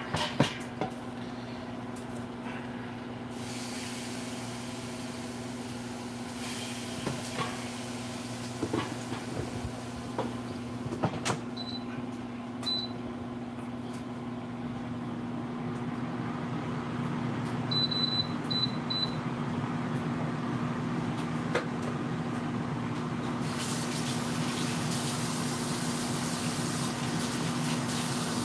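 Steady hum of a microwave oven running. Over it come short electronic beeps from an air fryer's touch panel being set, two single beeps and then a quick run of four, along with a few light knocks and clicks of handling.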